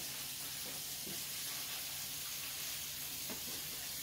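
Kitchen faucet running into a sink with a steady hiss, and a few faint knocks of dishes being handled while they are washed.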